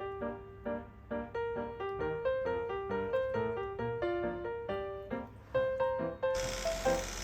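Background music: a light keyboard melody of short, separate notes. A steady hiss comes in near the end.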